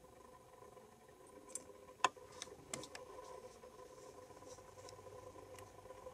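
A few small sharp clicks, the loudest a single tick about two seconds in, as steel gem tweezers grip and set down a faceted opal on a gem box, over a faint steady hum.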